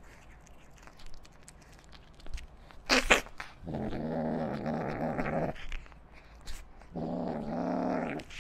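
Kitten eating tuna flakes with faint wet chewing and licking clicks. A short, loud burst of noise comes about three seconds in. After it the kitten growls low and rough twice, each growl lasting one to two seconds, a food-guarding growl while it eats.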